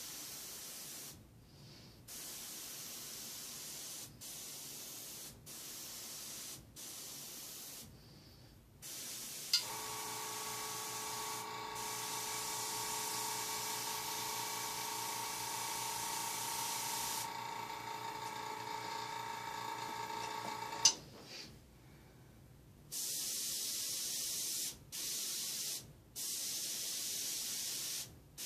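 Airbrush hissing in short bursts, on and off with the trigger. About ten seconds in, the air compressor switches on with a sharp click and runs with a steady hum for about eleven seconds, then clicks off, and the short airbrush bursts resume.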